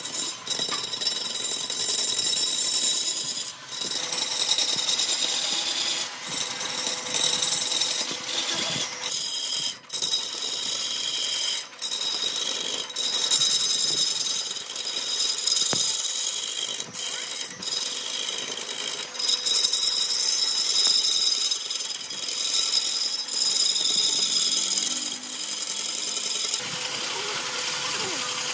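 An electric power tool running while working wood, in long stretches with short dips every few seconds, giving a steady high-pitched whine.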